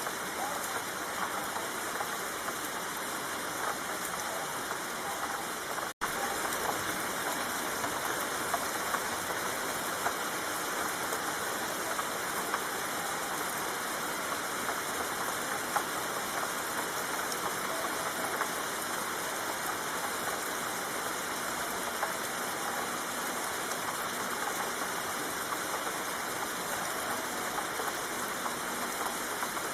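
Steady rain falling, a dense even patter of many small drops, with one split-second dropout about six seconds in.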